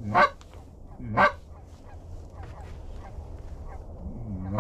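Canada goose honks: two loud honks in the first second and a half and another near the end, each a short call that rises in pitch, with fainter honks in between.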